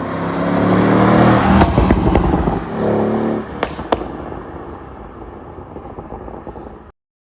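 Mercedes-AMG CLS 63's twin-turbo V8 revving up, then popping and crackling through the exhaust as the revs drop, from an ECU pop-and-crackle tune. A second short blip near three seconds brings two more sharp cracks, then a fading crackle until the sound cuts off.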